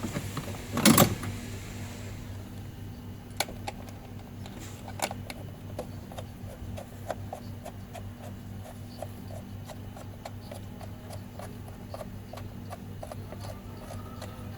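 Regular light mechanical clicking, about two clicks a second, beginning a few seconds in over a steady low hum. There is a brief louder knock about a second in.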